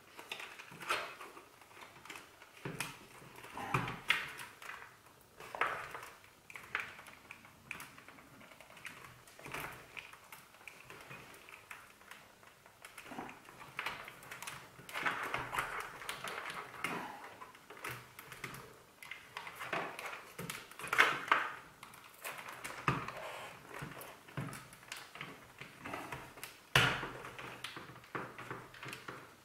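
Plastic intercom clip mount being worked onto a helmet shell by hand: scattered scraping, rustling and small plastic clicks.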